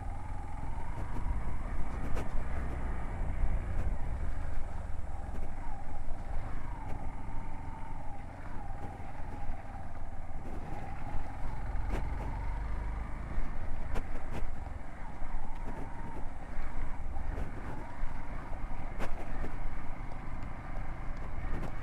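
Hero XPulse 200 motorcycle's single-cylinder engine running while riding a mountain road, its note rising and falling with the throttle over a steady low rumble, with a few sharp knocks.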